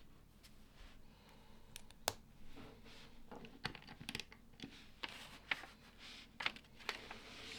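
LEGO plastic bricks being handled and pressed together: a string of sharp, irregular clicks with short rustles between them.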